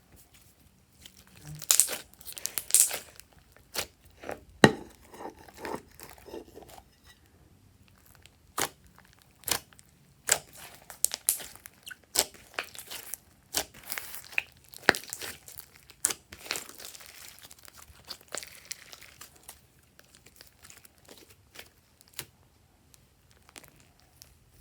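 Glossy slime being squeezed and stretched by hand, giving irregular sticky pops, clicks and crackles. The pops come thickest in the first few seconds and thin out near the end.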